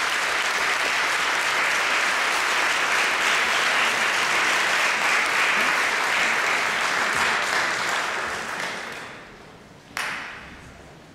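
Audience applauding steadily, then dying away over a couple of seconds. Near the end, a single sharp knock rings briefly in the hall.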